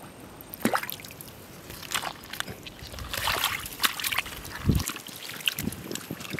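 Wet mud squelching and muddy water sloshing as bare hands dig into a flooded mud crab burrow: a run of irregular short splashes and sucking clicks, with one dull thump a little after halfway.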